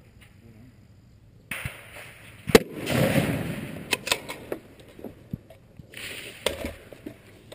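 A single rifle shot about two and a half seconds in, followed by several smaller clicks over the next few seconds.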